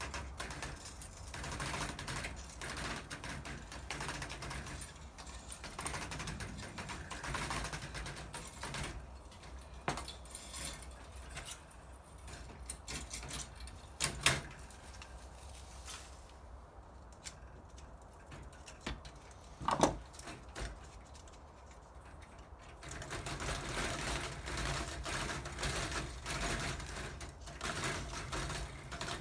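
Rapid clicking and rattling of tools and metal parts as a ceramic hob is taken apart, with two sharp knocks about 14 and 20 seconds in.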